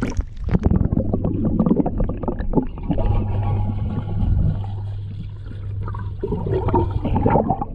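Water heard from under the surface of a swim spa: muffled splashing and bubbling as a child swims underwater, with many small knocks, over a steady low hum.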